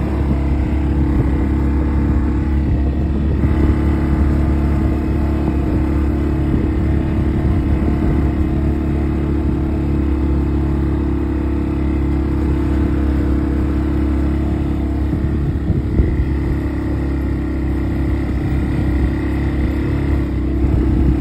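ATV (four-wheeler) engine running steadily while riding, heard from on board the machine.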